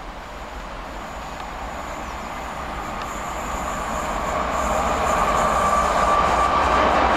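Freightliner container freight train approaching on electrified main-line track, its rumble and rail noise growing steadily louder as it nears, with a faint high whine and a ringing tone building in the second half.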